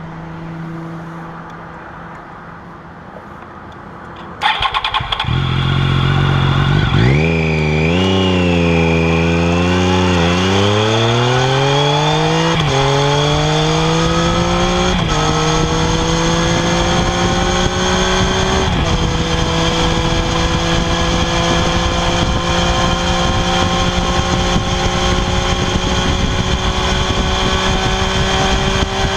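Triumph Daytona 675R's inline three-cylinder engine on its stock exhaust, starting with a sudden loud bark about four seconds in after a steady low hum. It then runs with its pitch wavering, then climbing gradually with a few small jumps before levelling off.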